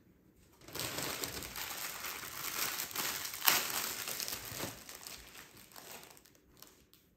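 Crinkly wrapping being crumpled and handled: a rustling crackle that starts about a second in, peaks in one sharp crackle halfway through, then tapers off.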